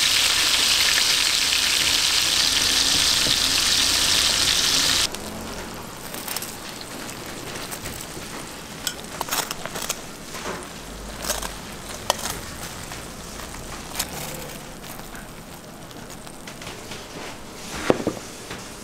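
Hot butter sizzling on a plate of sliced steak and bread, a dense hiss that cuts off abruptly about five seconds in. After that, quieter scattered clicks and taps of metal utensils on plates, with a sharper knock near the end.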